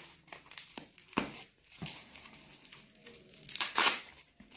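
Plastic bubble wrap and courier packaging crinkling and tearing as a parcel is unwrapped by hand, in irregular crackles with the loudest rustle about three and a half seconds in.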